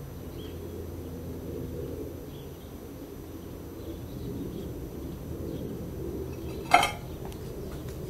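A glass measuring jug set down on stone patio tiles: one sharp clink near the end.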